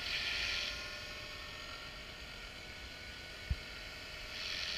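Align T-Rex 450 electric RC helicopter flying at a distance, its rotor and motor giving a faint, steady whine. There is a brief thump about three and a half seconds in.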